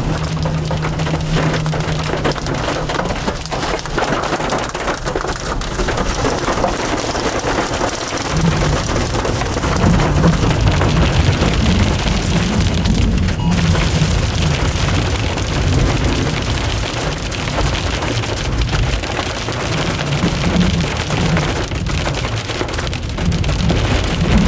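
Heavy rain in a tornado's rear-flank downdraft winds pounding a vehicle as it drives through, with a steady low rumble underneath that grows stronger about a third of the way in.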